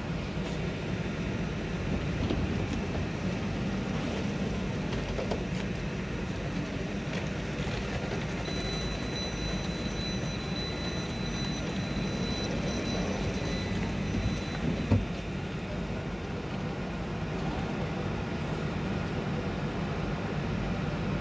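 Electric multiple unit standing at a platform, its onboard equipment running with a steady hum. A steady high tone sounds for several seconds in the middle, and there is a single thump about 15 seconds in.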